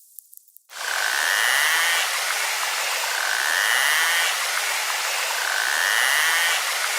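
Narwhal sounds: a few faint clicks, then from about a second in a loud hiss with three whistle-like calls rising over it, roughly two seconds apart.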